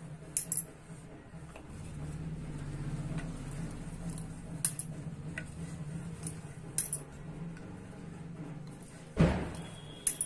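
A wooden rolling pin rolling maida dough out flat on a round board: a steady low rumble of the pin going back and forth, with light clicks and clinks now and then and one louder thump about nine seconds in.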